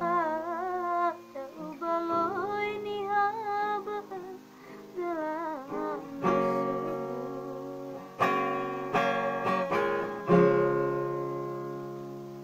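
Music: a woman sings a wavering line with vibrato over accompaniment. After about six seconds the voice stops and the accompaniment plays a few loud closing chords, the last one ringing out and slowly fading.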